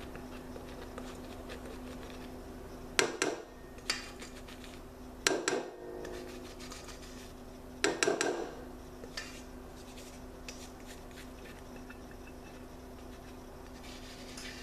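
Rubber spatula scraping meringue out of a stainless steel mixing bowl, with a few short scrapes and knocks against the metal, loudest about three, five and eight seconds in. A steady low hum runs underneath.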